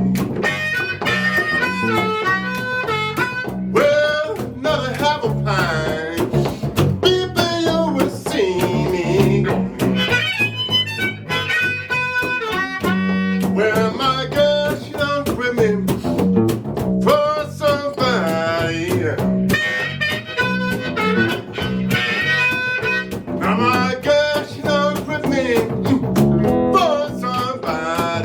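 Live blues music: a harmonica playing bending lead lines over guitar accompaniment with a steady walking bass pattern.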